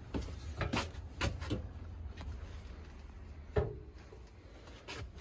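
Light knocks and clicks of handling, then a louder knock with a short metallic ring about three and a half seconds in and another knock near the end: a metal burner grate being set down onto a gas cooktop.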